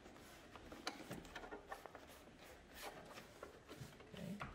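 Faint rubbing and a few light clicks as hands press a rubber trunk weatherstrip back into place along the trunk opening.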